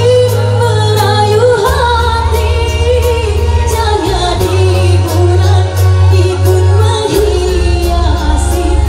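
A pop song with a singer's voice carrying a wavering melody over held bass notes and a steady, light cymbal beat.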